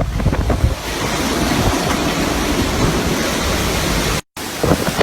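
Typhoon wind blowing in a steady rush and buffeting the microphone. It cuts out completely for a moment about four seconds in, then comes back gustier.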